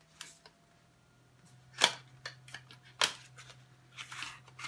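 Hands opening a small box of coasters and taking them out: a few sharp clicks and taps, the loudest about two and three seconds in, then a brief rustle near the end.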